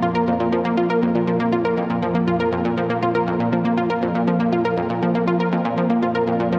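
Synthesizer pad preset from AAS's Ultra Pads sound pack for the VA-3 virtual-analog synth: a sustained chord pulsing rapidly and evenly, about eight pulses a second.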